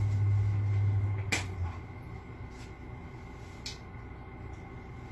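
A low steady hum that stops about a second and a half in, with a sharp click around the same point and a few fainter clicks and taps later as food and containers are handled.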